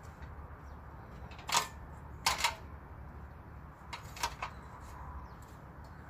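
Aluminium stepladder being handled and opened: a few sharp knocks and clacks, one about a second and a half in, a pair about two and a half seconds in and a quick group of three about four seconds in, over a steady low rumble.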